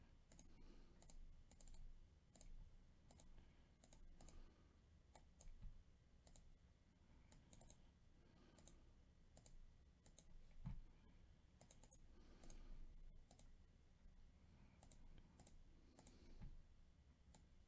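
Faint, irregular clicking of a computer mouse, about one or two clicks a second, with a few soft low thumps; otherwise near silence.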